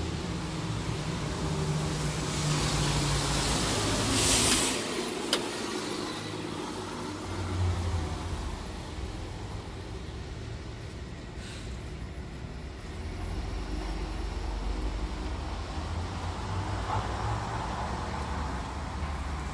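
City street traffic with a bus engine running, and a short, loud hiss of air brakes about four seconds in.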